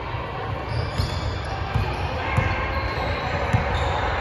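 Basketball dribbled on a hardwood court floor: a handful of unevenly spaced bounces.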